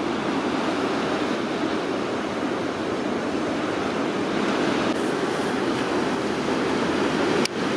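Ocean surf: a steady roar of breaking waves, with a short break near the end.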